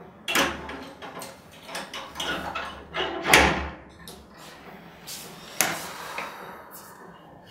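A flat's front door being unlocked and opened from outside: a run of metallic clicks and rattles from the lock and latch, the sharpest about three seconds in, then the door swinging open with another click.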